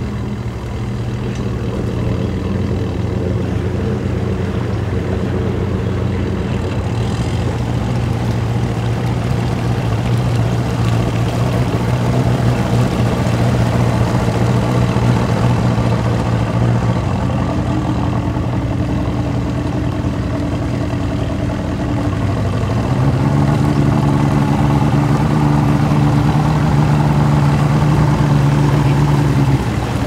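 A work boat's engine running steadily at low throttle. The pitch steps up about two-thirds of the way through, as it is throttled up, and drops back just before the end.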